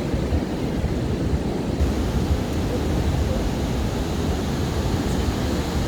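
Ocean surf breaking and washing onto a sandy beach: a steady rushing noise with a heavy low rumble.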